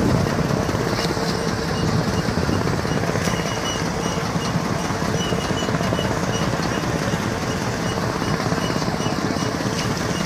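A fishing boat's engine running steadily, a low even hum under a broad wash of noise.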